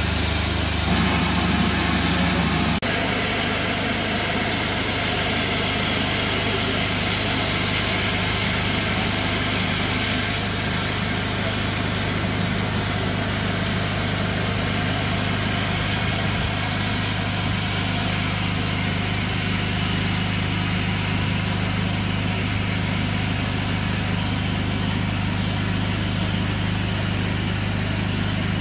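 Standing steam locomotives giving off a steady hiss with a low, even hum beneath it. The sound shifts abruptly about three seconds in.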